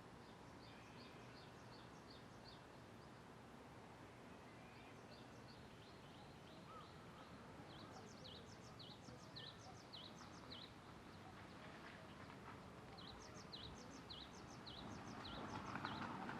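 A bird singing: four runs of short, high, down-slurred notes, about three a second, over faint outdoor background hiss. A soft rush of noise swells up near the end.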